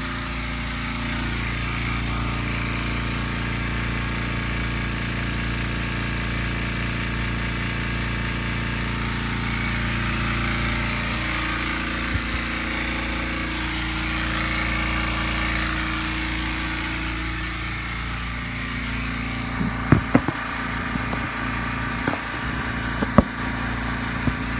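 Air compressor running steadily while it builds up tank pressure, a constant mechanical drone whose pitch shifts slightly about halfway through. A few sharp knocks come near the end.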